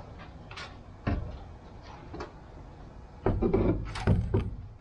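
Plywood floorboard knocking and rubbing against the wooden cockpit sides as it is worked into place: one knock about a second in, then a cluster of louder knocks and scrapes from about three seconds in.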